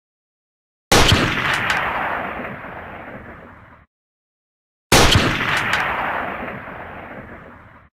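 Two M24 bolt-action sniper rifle shots about four seconds apart. Each is a sharp crack followed by a long tail that fades out over about three seconds before cutting off abruptly.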